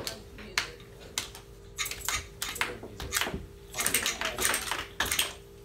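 Irregular clicking and tapping of typing on laptop keyboards, over a steady hum.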